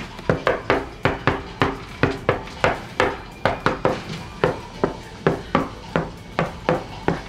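Knocking on a cabin door: about two dozen sharp raps tapped out in an uneven rhythm, like a song played on the door.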